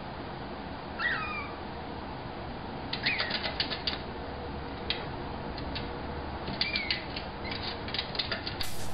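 A puppy shut in a plastic pet carrier whining, three short high cries, with clusters of clicks and rattles as it paws at the carrier.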